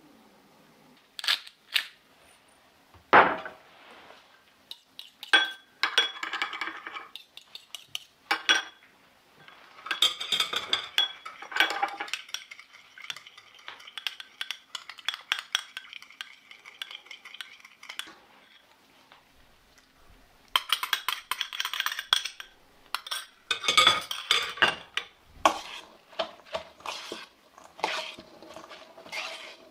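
Metal spoon clinking and scraping against a small glass bowl while stirring a dressing, in scattered taps and then long runs of quick clinks. Near the end, a spoon working through shredded cabbage in a stainless steel bowl.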